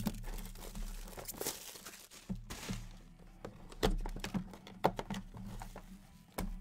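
Cardboard trading-card box and its packaging being handled and opened: cardboard sliding and scraping, plastic crinkling, and a string of sharp taps and knocks, the loudest about four and five seconds in.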